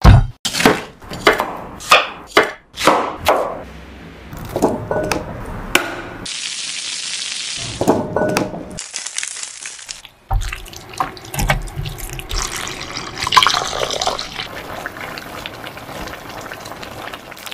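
Kitchen work on fresh pineapple: a run of sharp knocks and cuts, a tap running briefly twice, then diced pineapple cooking in a nonstick pan as it is stirred with a spatula.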